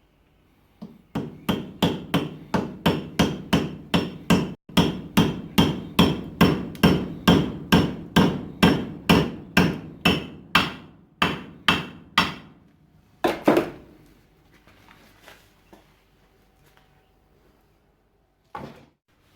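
Hammer blows on hot steel at the anvil during forging: a steady run of about three strikes a second with a brief break near five seconds. The run stops around twelve seconds, followed by a couple more strikes and a single last blow near the end.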